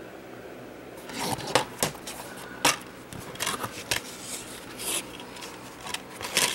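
Plastic DVD keep case being handled and opened: a quiet first second, then a run of sharp clicks, rattles and scrapes.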